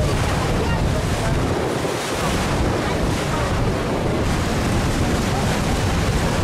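Wind buffeting the microphone and water rushing past a moving boat, heard on board as a steady noise with a strong low rumble.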